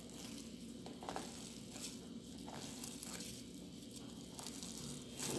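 Faint, scattered squishing and crinkling as foam-bead modelling dough is worked by hand, a soft stroke every second or so.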